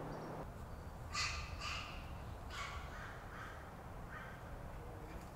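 A crow cawing several times, the first two caws a little over a second in being the loudest, the rest following more faintly over the next few seconds.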